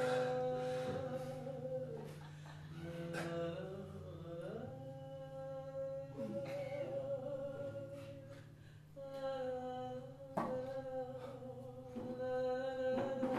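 Wordless humming or singing: long held notes that slide from one pitch to the next, one of them wavering, over a steady low drone. A single sharp knock comes about ten seconds in.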